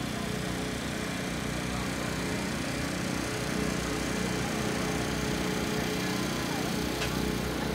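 Small portable generator running steadily with an even hum, with a crowd's voices faint underneath.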